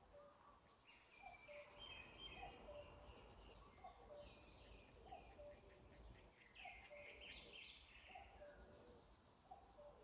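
Faint birdsong: one bird repeats a short, low two-note call about once a second, while other birds chirp and warble higher.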